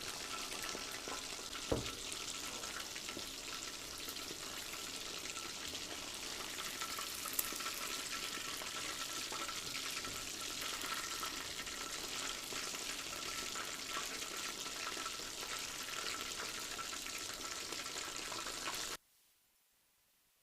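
Chicken pieces frying in hot oil: a steady crackling sizzle, with a sharp knock about two seconds in and a fainter click later. The sound cuts off abruptly near the end.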